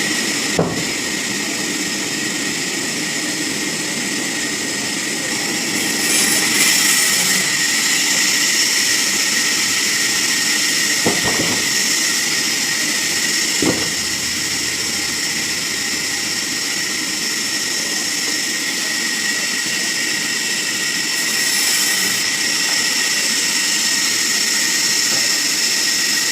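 Sawmill machinery running steadily, a continuous high-pitched whine over a dense mechanical noise, with a few sharp knocks: one about half a second in and two more around eleven and fourteen seconds.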